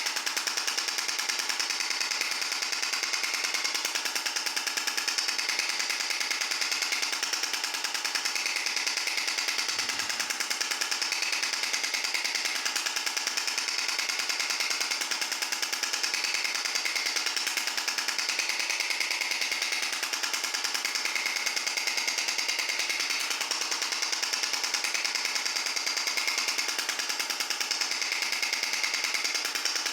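Extracorporeal shock wave therapy (ESWT) device firing a monotonous, rapid train of sharp repeating pulses at an even rate and level.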